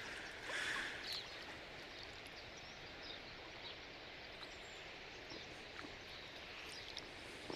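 Steady rush of flowing creek water, with a few faint bird chirps.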